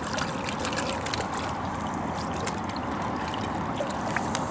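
Seawater washing and trickling among shoreline rocks, a steady wash with a few faint ticks.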